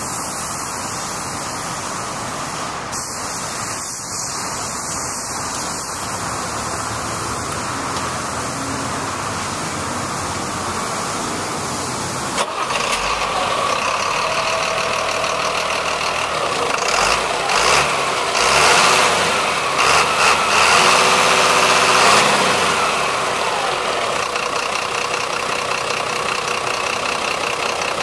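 A 1997 GMC C7500's Caterpillar diesel engine starts a little under halfway through, is revved up and down several times, then settles to a steady idle. Before it starts there is only a steady hiss.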